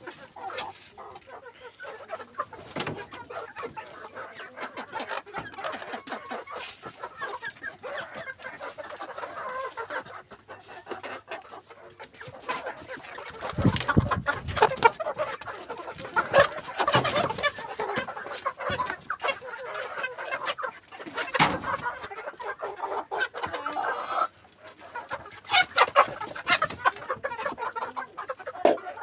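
Roosters clucking continuously, a group of birds calling over one another, louder through the middle and again near the end. A few low thumps sound in the middle.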